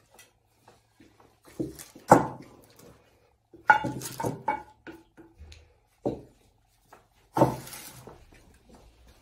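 Wooden spoons knocking and scraping against ceramic mixing bowls while batter is stirred, giving a handful of separate sharp clinks and knocks, a few of them ringing briefly.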